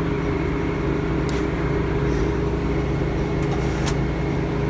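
A sawmill's engine running steadily at a constant speed, with a few faint clicks over it.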